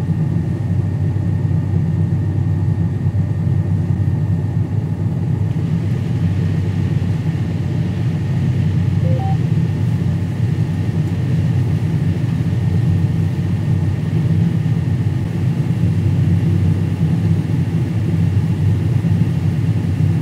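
Combine harvester running steadily: a constant low engine drone with a faint, steady high whine over it.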